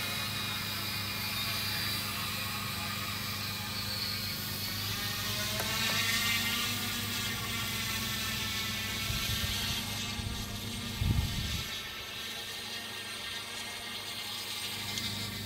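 Multirotor propellers of a heavy-lift quadcopter whirring steadily overhead, their pitch rising about six seconds in as it takes up the weight of the RC plane hanging below and lifts it off the stand. A brief low thump about eleven seconds in.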